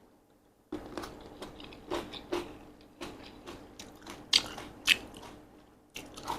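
Close-miked mouth sounds of eating Korean sweet-potato glass noodle salad with vegetables: wet chewing with a run of sharp, crisp crunches starting about a second in, the loudest two about four and a half and five seconds in.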